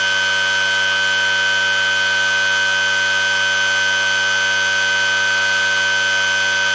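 Homemade pulse motor spinning at high speed, giving a steady high-pitched whine that holds one pitch throughout.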